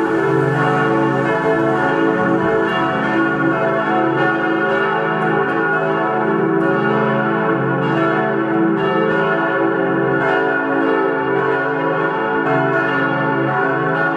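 Full peal of four church bells cast by Perner of Passau in 1972, tuned C-sharp, E, F-sharp and A, ringing together in a steady, unbroken stream of overlapping strokes.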